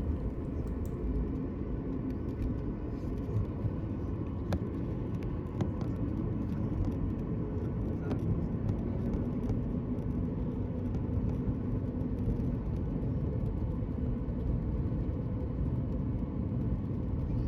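Steady low vehicle rumble with a faint hum and a few light clicks.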